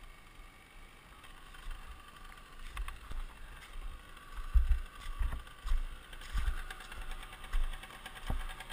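Enduro dirt bike engine running low at idle, with irregular dull thumps from about four seconds in as the rider stands over the downed bike in deep mud.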